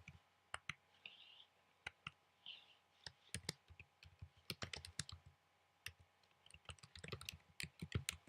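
Faint typing on a computer keyboard: irregular keystroke clicks in quick runs, with short pauses between them.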